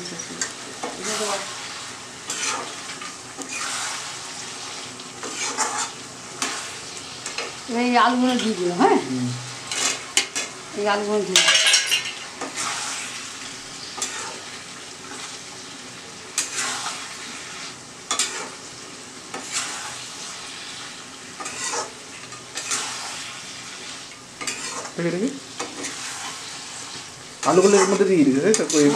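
Metal spatula stirring and scraping curry in an iron kadai, with frequent clinks against the pan over a steady sizzle of frying. A few short pitched sounds come in as well, loudest near the end.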